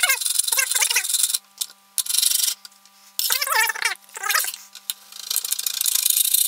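Kitchen knife sawing through pork ribs between the bones, the blade rubbing and squeaking against a glass cutting board in several strokes with short pauses.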